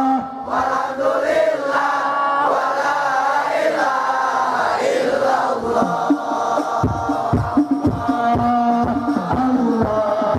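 Male voices chanting a devotional song together, with steady drum beats coming in about seven seconds in.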